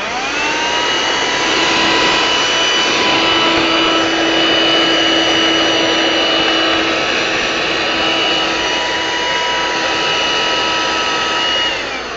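Handheld vacuum cleaner switched on, its motor whine rising quickly to speed, then running steadily with a loud rushing hiss. Near the end it is switched off and the whine falls as the motor winds down.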